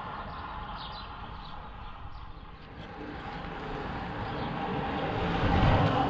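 A time-trial bicycle with a rear disc wheel approaching and passing close, its tyre and wheel whoosh swelling to a peak near the end.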